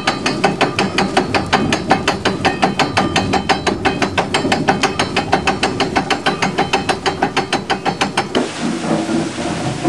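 A corn mill's wooden feed shoe clacking rapidly and evenly, about five or six knocks a second, as the damsel on the turning millstone spindle knocks it to shake grain into the eye of the stone. The clacking stops suddenly near the end, leaving a softer steady noise.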